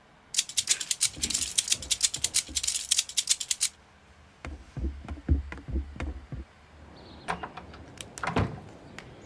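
A rapid run of sharp clicks, about eight to ten a second, for a few seconds. After it come several dull knocks and a few scattered clicks.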